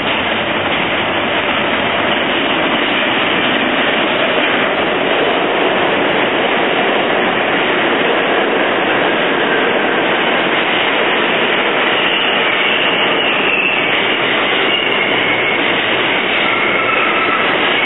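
Stainless-steel New York City subway train with Westinghouse propulsion pulling into a station: a steady loud running noise of the cars passing along the platform. From about twelve seconds in, as the train slows, high thin tones sound over it.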